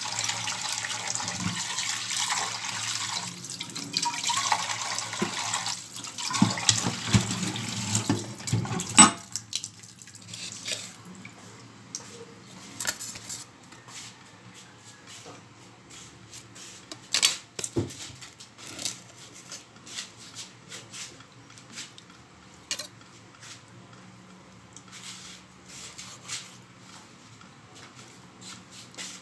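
Tap water running into a pan in a steel sink as raw meat is rinsed by hand; the water stops suddenly about nine seconds in. After that come scattered knocks and clicks as the meat is handled and cut with a knife on a wooden chopping board.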